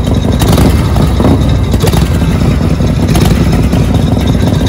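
Custom Harley-Davidson V-twin chopper engine running loudly at a standstill, with a few short louder surges about half a second, a second and three seconds in.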